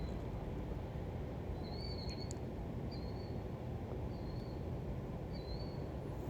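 A bird repeating a short, high, slightly wavering call about once a second, over a steady low background hiss of outdoor air.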